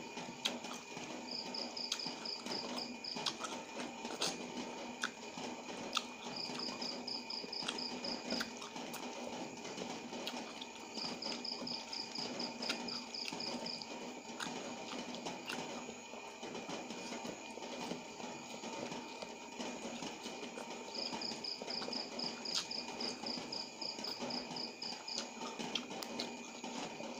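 Close-up eating sounds: mouth clicks and chewing of noodles and raw tamarind leaves, with occasional sharper clicks. Behind them a cricket chirps in short, high, evenly pulsed trills that come back every few seconds, over a steady faint hum.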